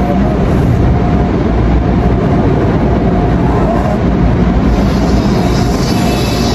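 Automatic car wash machinery running, heard from inside the car's cabin: a loud, steady rumble and rush, with more hiss joining about four and a half seconds in.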